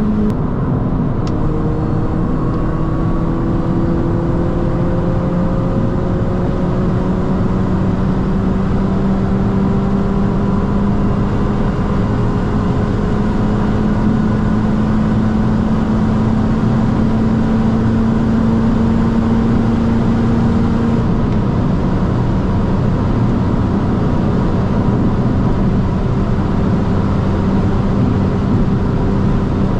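Mini John Cooper Works GP (R53) supercharged 1.6-litre four-cylinder engine pulling hard at high speed, its pitch rising slowly over a steady wash of wind and tyre noise. The pitch drops a step just after the start and again about twenty seconds in.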